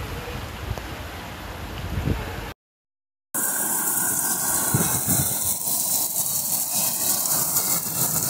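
A car engine running low with water noise as the car drives through a flooded street. A short silent gap follows, then heavy rain pours down in a steady, dense hiss.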